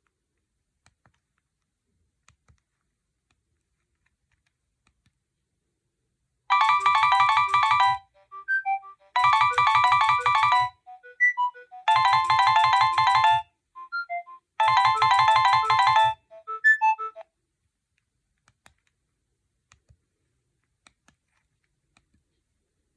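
Nokia 6610 mobile phone playing a ringtone: a short electronic phrase, about a second and a half long, repeats four times with scattered single notes between the repeats. It starts about six seconds in and stops a few seconds before the end.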